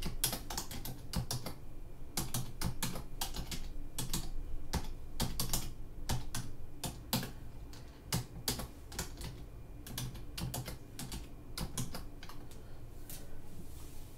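Typing on a computer keyboard: a run of irregular keystrokes, about three or four a second, growing sparser near the end.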